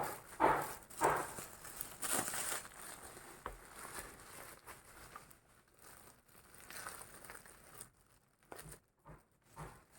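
Packaging being handled, crinkling and rustling in short irregular bursts that are loudest in the first few seconds and then die down to faint scattered rustles.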